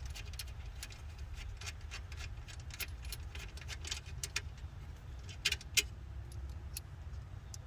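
Irregular metallic clicking and clinking of hand tools and loose nuts as the strut tower bar's mounting hardware is undone, with two sharper clinks about five and a half seconds in, over a low steady rumble.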